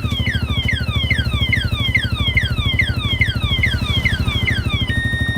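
Motorcycle alarm siren sounding a falling whoop about three times a second over the Yamaha M-Slaz's single-cylinder engine idling, switching to steady alternating tones near the end as the engine dies. The alarm has been set off by the remote lock on a running bike and is cutting the engine, its anti-theft shutdown.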